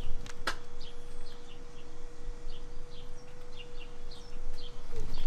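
Small birds chirping in quick, scattered high notes over a faint steady hum, with a single sharp click about half a second in.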